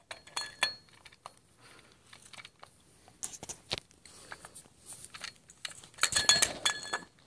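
Steel parts of a Toyota ST205 front differential knocking and clinking with a metallic ring as the ring gear is pounded off the diff housing: scattered sharp knocks, with a dense flurry of them about six seconds in.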